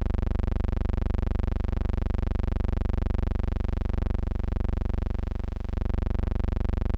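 A steady buzzing hum, like electrical mains hum, with many even overtones and a fast, even pulsing in loudness. It holds one unchanging pitch throughout.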